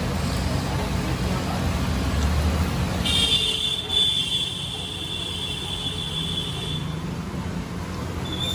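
Metal spatula stirring and scraping chole on a large flat iron griddle, over a steady low rumble of street traffic. A high steady whine comes in about three seconds in and lasts about four seconds.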